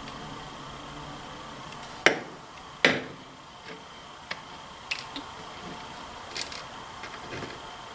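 Clicks and knocks of rifle parts being handled as the Savage Model 64's trigger assembly is fitted back in: two sharp knocks about two and three seconds in, then several lighter clicks.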